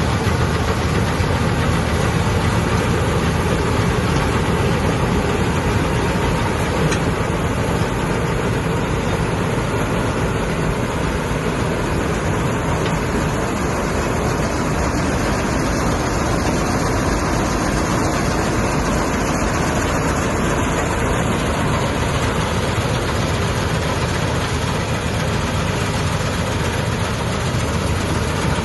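Chardikala combine harvester's diesel engine running steadily at an even pace.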